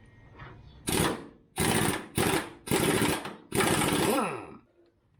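A power tool run in five short, loud bursts, each about half a second to a second long. As the last burst ends the motor winds down in pitch.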